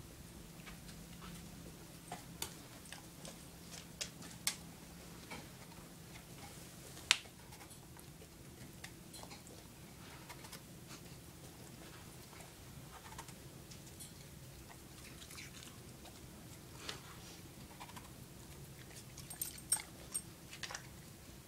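A dog nosing and chewing a snowball on a hardwood floor, with scattered faint clicks and taps of its teeth and claws. The sharpest click comes about seven seconds in, and a cluster of them comes near the end.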